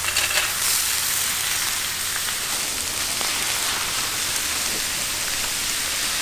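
Pork offal sizzling steadily as it grills, with a few light clicks at the start.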